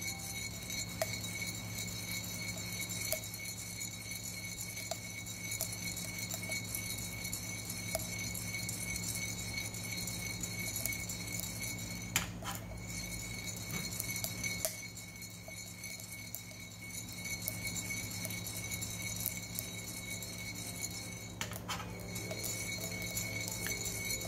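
Coffee beans rattling and clinking inside a handheld ceramic roaster as it is swirled over a gas flame. Scattered single sharp pops mark the beans' second crack.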